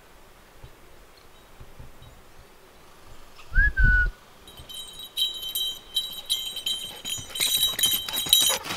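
A Vizsla's collar tags jingling and clinking in quick rhythm as the dog trots up the dirt trail, starting about halfway through and getting louder toward the end. A single short whistle comes just before the jingling starts.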